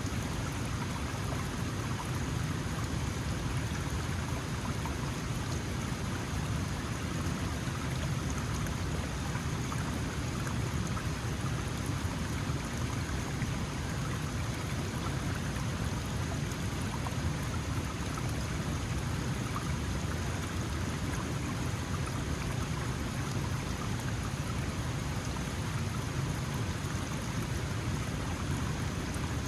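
Small mountain stream flowing steadily: a continuous rush and babble of water, strongest in the low range, with no breaks.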